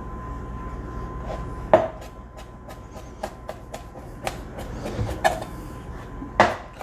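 Chef's knife mincing garlic on a plastic cutting board: irregular knocks of the blade against the board, with a few much louder chops.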